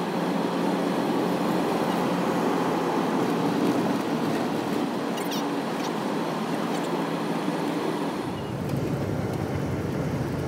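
Steady road and engine noise inside a moving van, an even rushing hum that grows deeper and fuller about eight seconds in.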